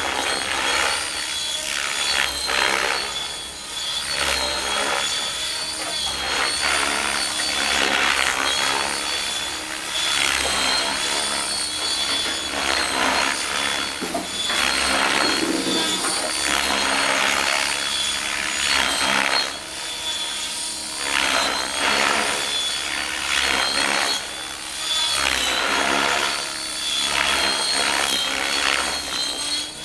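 Electric radio-controlled helicopter (Rave ENV with 710 mm flybarless main blades) in flight: rotor blades whooshing in repeated surges that swell and fade every second or two, over a steady high whine.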